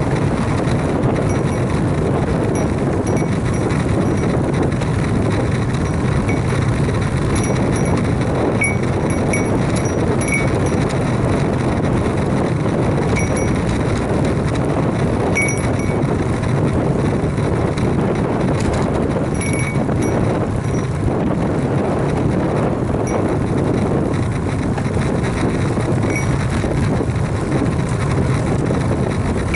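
Steady rushing noise of a road bike riding at speed: wind on the microphone and tyres rolling on asphalt.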